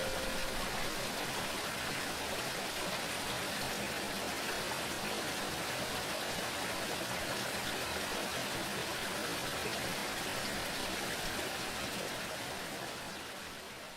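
Steady rush of flowing water that fades out over the last couple of seconds. At the start, the ringing tone of a Tibetan singing bowl struck just before dies away within the first half-second.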